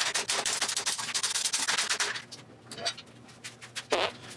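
A fast run of clicks, rattles and knocks as metal bar clamps are released and pulled off a plywood cabinet. The clatter stops about two seconds in, leaving a few scattered knocks.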